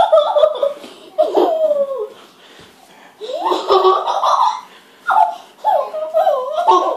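Three-year-old child laughing and giggling in about four bouts while being tickled with a feather.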